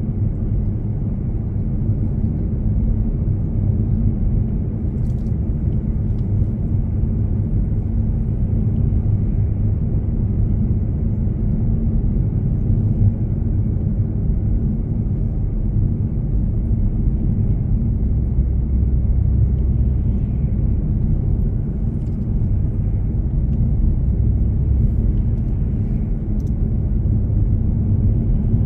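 A car driving steadily along a road, its engine and tyres making a continuous low rumble.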